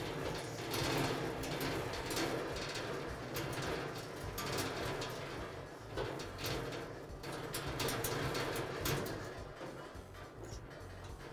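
Hand screwdriver turning a screw into the steel frame of a gas grill cabinet, securing the drip pan bracket: a series of short scraping turns with light clicks, about one a second.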